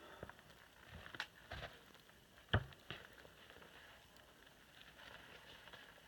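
Scattered footsteps and knocks on a snow-covered stump as boots and a handheld axe shift about, the loudest a single sharp knock about two and a half seconds in.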